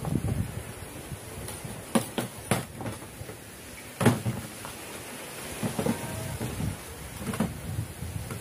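Knocks and clatter of a homemade PVC-pipe and wood marble gun and tools being handled and set down on a hard work surface, the loudest knock about four seconds in, over steady background noise.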